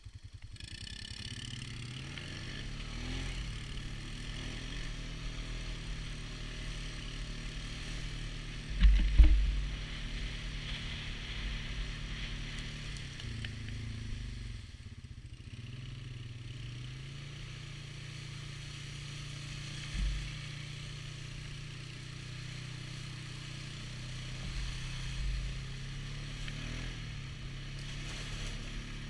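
Polaris ATV engine running as it rides a muddy trail, its pitch rising and falling with the throttle, with tyres splashing through puddles. Heavy low thumps come about nine seconds in and again about twenty seconds in.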